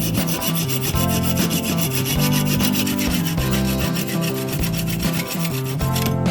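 Fast, rhythmic rubbing strokes, like hand sanding or filing, repeating several times a second over background music.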